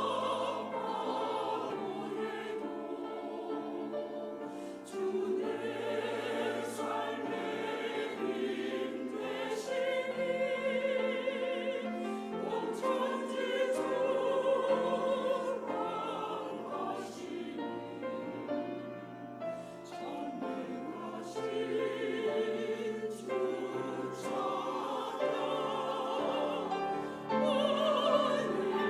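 Church choir singing an anthem in harmony, with long held notes and a clear vibrato.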